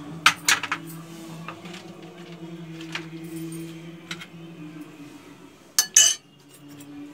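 A metal spoon and dishes clink lightly against a ceramic plate a few times, with the loudest double clink near the end as the spoon is set in the plate, over a steady low hum.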